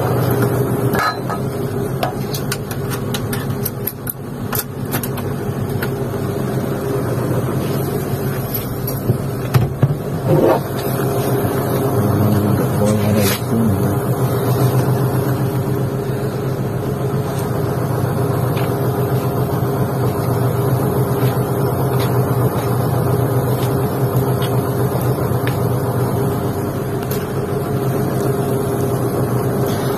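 Excavator diesel engine idling steadily, with a few knocks and clicks of handling in the cab, loudest about ten seconds in.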